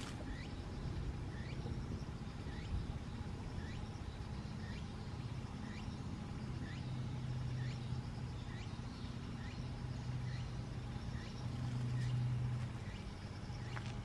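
A steady low motor hum that swells briefly near the end, with a faint short chirp repeating a little more than once a second over it.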